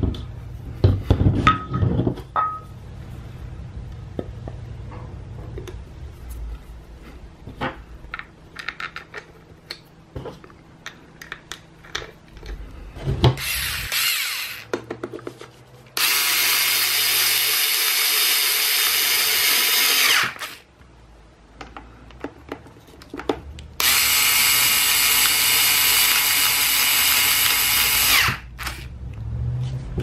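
Cordless electric screwdriver driving in the screws that close a pedestrian call button's housing: a short burst, then two steady runs of about four seconds each. Before the driving, the hard plastic housing is handled with scattered clicks and knocks.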